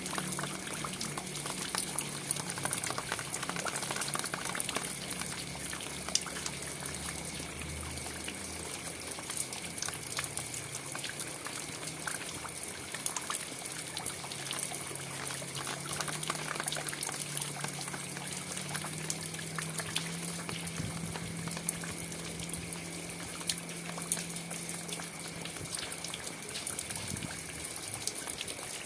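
Steady rain: a continuous hiss with many sharp drops hitting close by. A low hum underneath shifts in pitch now and then.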